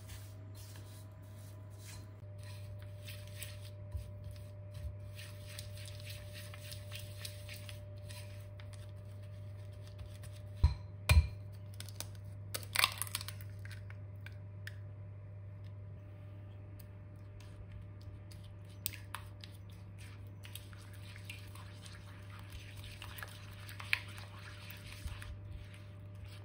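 A silicone spatula scrapes and stirs creamed butter and sugar in a bowl. Two sharp knocks come near the middle as an egg is cracked on the rim, with a brief crackle of shell just after. The egg is then mixed in, over a steady low hum.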